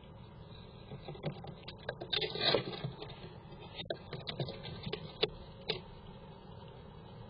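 Squirrel moving about inside a wooden nest box: its claws scratch and click on the wood in a run of short scrapes, the loudest scraping a couple of seconds in.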